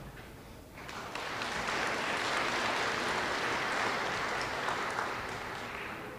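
Audience applauding. The clapping starts about a second in, swells, then fades away near the end.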